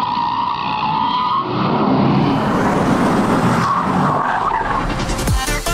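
Car tyres squealing in a skid: a steady screech for the first second and a half, then a broader rushing hiss. Electronic music with a deep bass comes in near the end.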